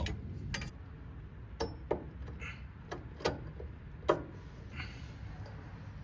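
Scattered light clicks and taps of copper refrigerant tubing and a flux brush being handled at a condensing unit's brass service valves, as the joints are fluxed and the tubing slid back into its fittings.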